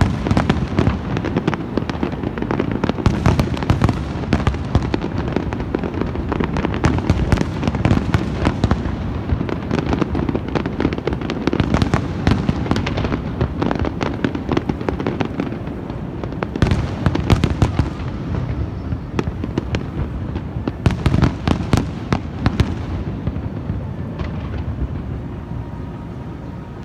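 Many fireworks going off at once: a continuous din of bangs and crackling over a low rumble, with louder clusters of bangs about 3, 7, 12, 17 and 21 seconds in. The din eases a little near the end.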